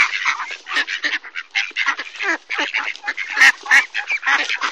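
A flock of mallard ducks quacking, many short rough calls overlapping in quick, irregular succession.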